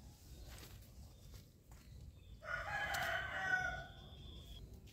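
A rooster crows once, a single call of about a second and a half starting about halfway through.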